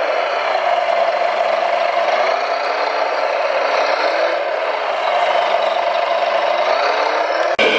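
Electric drive and gearing of a hand-built RC construction machine whirring steadily, its whine wavering up and down in pitch. It is cut off abruptly near the end and replaced by a different machine sound.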